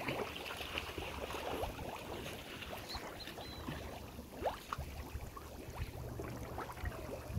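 Water sloshing and splashing irregularly as people wade chest-deep through a muddy creek.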